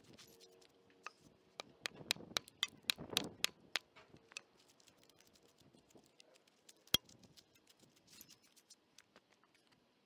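Broken concrete chunks clicking and knocking together as a gloved hand pulls them out of a freshly cored hole in a concrete curb. A quick flurry of clicks comes about two to four seconds in, and one sharp knock about seven seconds in, with lighter scattered clicks between.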